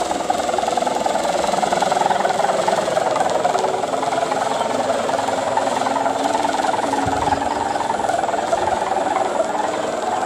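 Sendaren, the bow-string hummer on a black gapangan kite, droning steadily and loudly in the wind with a fast buzzing flutter.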